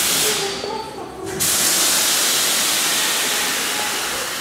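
Compressed air hissing out of a pneumatic line: a short hiss at the start, then a loud, steady hiss from about a second and a half in.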